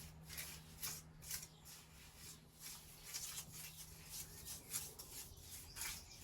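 Irregular scraping strokes of a mason's hand tool working stone and mortar, a few a second.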